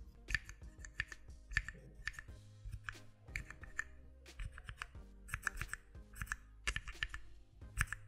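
Keys on a keypad fitted with CHERRY MX Low Profile Red switches, which are linear, pressed in quick runs of several strokes, each one a short sharp clack. Background music with steady low notes plays underneath.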